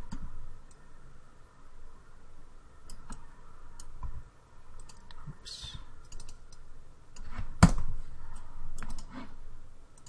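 Computer mouse and keyboard clicks, scattered and irregular, with one sharper, louder click a little after halfway.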